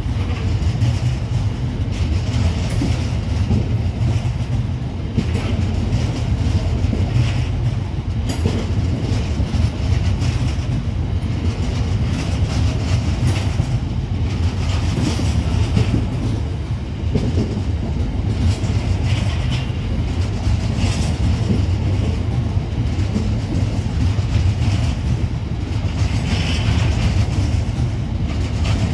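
A long rake of DB Cargo UK MMA open box wagons rolling past at close range: a steady rumble with the wheels clacking over the rail joints again and again.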